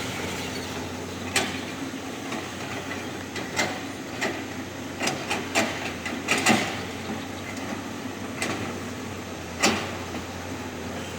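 Heavy construction machine engine running steadily, with irregular sharp metallic clanks and knocks a dozen or so times.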